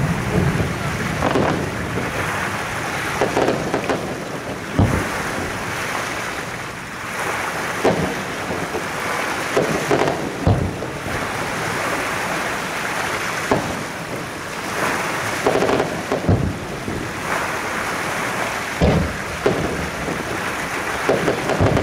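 Firework shells bursting: about a dozen deep booms at irregular intervals, some in quick pairs, over a steady rushing background.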